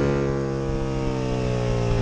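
Aprilia RSV Mille's V-twin engine as the rider shuts the throttle: the revs drop sharply just before, then keep falling slowly as the bike slows under engine braking.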